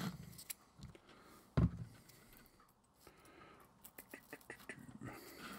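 Hobby work on a desk: scattered light clicks and taps from small parts and tools being handled, with one dull thump about one and a half seconds in.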